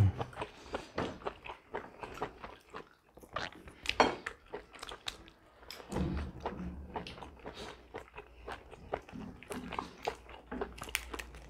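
Close-miked eating sounds from roast chicken and lettuce: chewing, biting and many small wet mouth clicks, irregular throughout.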